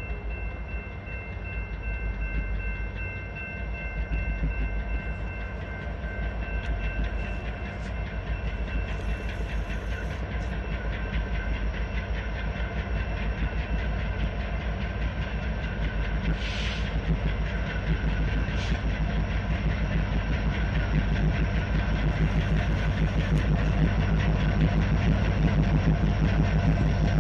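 A lashup of Norfolk Southern diesel-electric locomotives, led by an EMD SD70ACe, hauls a freight train toward the listener. Their engines give a deep throbbing rumble, with wheels running on the rails, and the sound grows steadily louder as the train approaches.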